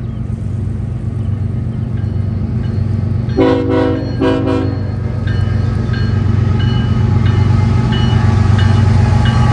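BNSF freight train's diesel locomotives approaching with a steady low engine rumble that slowly grows louder, and the locomotive horn sounding two short blasts about three and a half seconds in.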